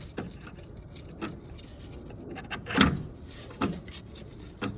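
Scattered clicks and knocks of hand tools and metal parts being handled while refitting a steering box cover, the loudest a little under three seconds in.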